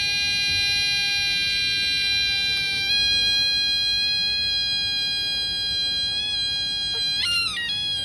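A long, loud, high-pitched beep tone held steady for about seven seconds, with small steps in pitch, then wavering and breaking up near the end.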